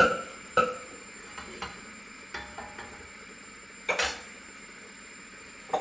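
Stainless-steel saucepans clinking and knocking on a gas hob, about six sharp taps with a brief metallic ring, the loudest about four seconds in, over a steady faint hiss.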